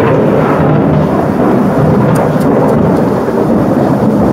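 Loud thunder rumbling after nearby lightning strikes, over steady tropical rain.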